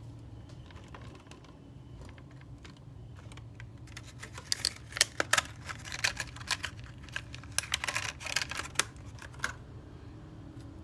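A flurry of quick, irregular clicks and taps for about five seconds, starting about four seconds in, over a steady low hum.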